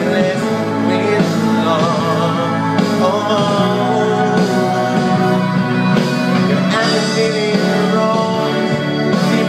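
A man singing into a handheld microphone over instrumental backing music, holding notes with a wavering vibrato.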